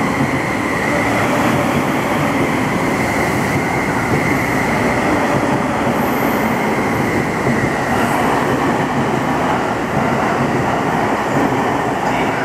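E231-series electric commuter train pulling out of the platform, its cars rolling past with a loud, steady rumble of wheels on rail.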